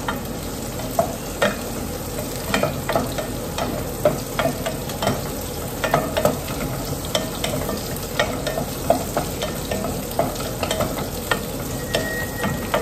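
Garlic, onion and ginger sizzling in oil in a pot on a gas burner, while a wooden spoon stirs them and knocks against the pot at irregular moments.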